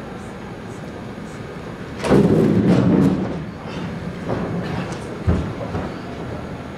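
Chairs scraping and feet scuffling on a stage floor as two people rush from a table to catch a third: a loud burst about two seconds in, then shuffling steps and one low thump near the end.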